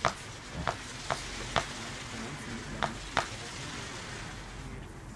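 Fireworks battery firing shots: six sharp pops, irregularly spaced over the first three and a half seconds, over a steady hiss of burning effects.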